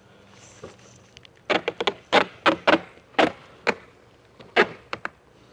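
Duct tape being worked onto a dryer vent duct: about ten short, sharp rips and knocks in quick succession, starting about a second and a half in and ending near five seconds.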